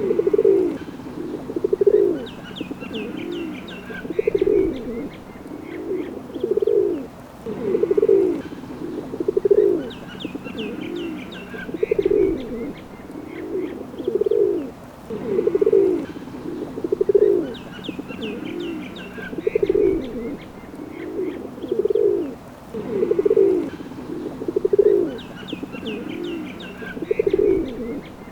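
Pigeons cooing over and over, low throaty coos about every second or so. Clusters of higher bird chirps come back about every eight seconds, and the same stretch seems to repeat as a loop.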